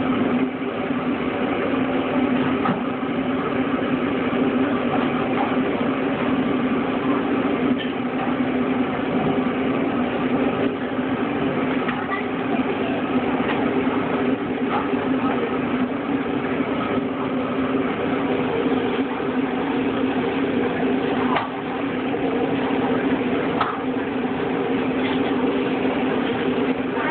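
Steady low machine hum, engine-like, with scattered short clicks and clatter over it.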